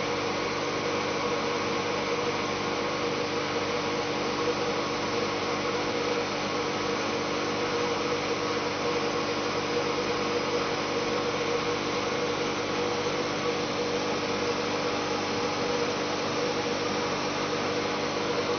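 Fan blowing air through a metal spiral duct: a steady hum with a few held tones over an even rush of air.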